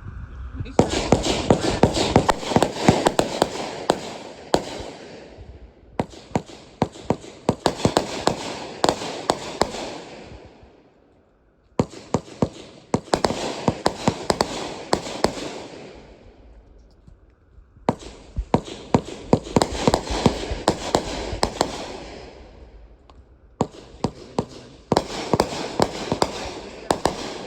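Consumer fireworks crackling: five bursts of rapid pops and crackle, each lasting about four to five seconds, with short gaps between them.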